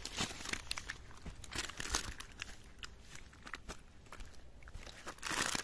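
Plastic bag crinkling and rustling as it is handled, in scattered crackles, with a denser rustle near the end.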